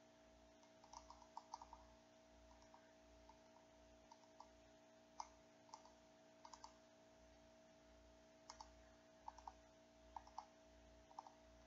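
Long fingernails tapping and clicking on a small decorated jar and its lid: faint, light clicks coming irregularly in quick clusters of two to four, with short pauses between.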